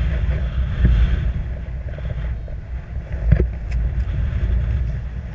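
Airflow buffeting the camera's microphone as a paraglider glides in to land: a steady low rumble of wind noise, with a stronger gust about three seconds in.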